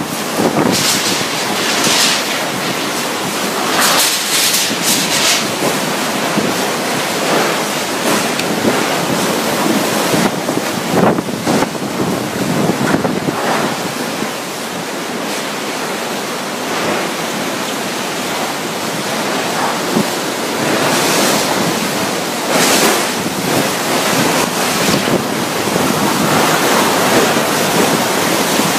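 Typhoon-force wind and driving rain blowing without a break, with stronger gusts surging up every so often.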